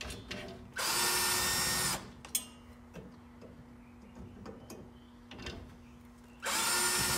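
Cordless drill-driver runs in two bursts of about a second each, near the start and near the end, backing out the Phillips screws that hold a steering wheel's horn ring. Light clicks of handling come between the bursts.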